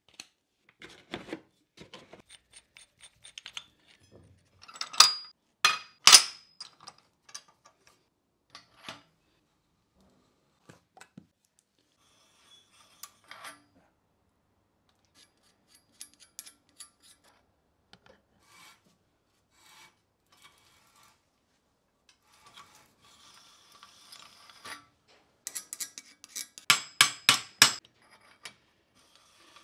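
Metal clicks and two loud clacks about five and six seconds in as a hand stock and die set is handled, then an M20 die cutting a thread onto 20 mm galvanised steel conduit: a rasping scrape of metal on metal, with a quick run of sharp strokes near the end.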